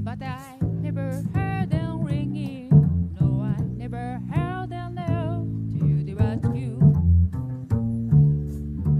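A woman singing a slow ballad melody with vibrato, accompanied only by a plucked upright double bass.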